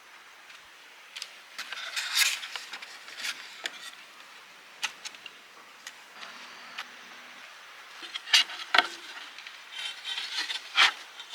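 Cooking gear being handled: scattered small clicks, taps and scrapes over a faint steady hiss, with the sharpest knocks about eight and eleven seconds in.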